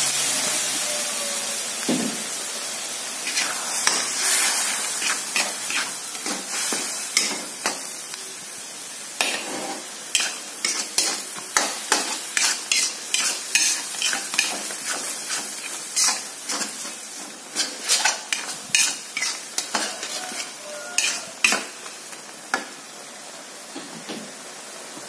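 Metal spatula stirring and scraping in a non-stick wok, many sharp irregular clicks against the pan, over a hissing sizzle that dies down after water has gone into the hot pan.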